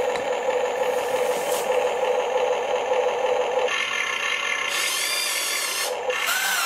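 Huina 1593 RC excavator's electric motors and gearing whining steadily, with some rattle. About four seconds in, the whine shifts to a higher, wavering pitch as the arm lifts a cordless drill in its bucket.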